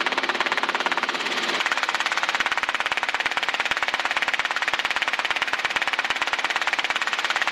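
Robinson R22 helicopter's rotor and engine noise heard through the headset intercom: a steady, rapid, even pulsing of the main rotor blades during the descent on final approach. A lower hum under the pulsing drops away about a second and a half in.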